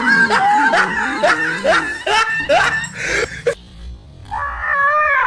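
A dog yelping and screaming in fright as a stuffed toy tiger is pushed onto it: a rapid run of short, high cries about two a second, then a pause and one longer cry near the end.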